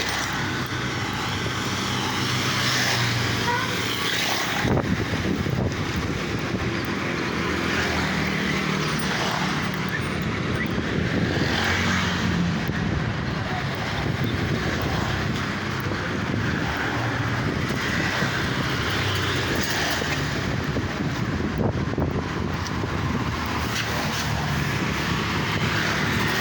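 Motor vehicle running on a road: a steady mix of engine hum and road and traffic noise, the engine's pitch shifting now and then.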